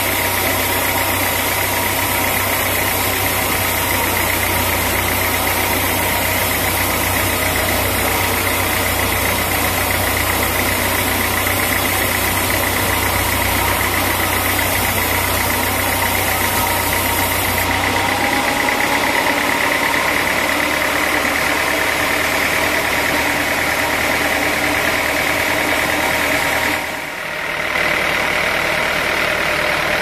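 Sawmill machinery running steadily: a continuous engine-like drone with a high whine over it. The sound changes abruptly about two-thirds of the way in, losing its low hum, and dips briefly near the end.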